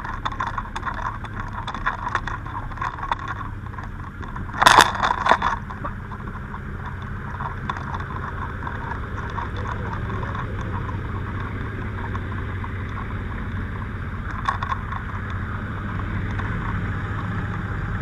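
Vehicle engine idling steadily with a low hum, with faint clicks in the first few seconds and a short, loud burst of noise about five seconds in.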